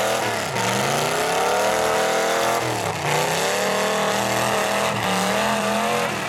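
Demolition derby cars' engines revving hard, the pitch climbing and dropping back several times, with sharp drops about half a second and three seconds in.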